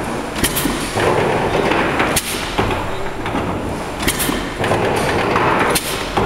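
Mill steam engine running up to speed on full steam, with a steady mechanical noise and a sharp hiss-and-knock that repeats about every two seconds.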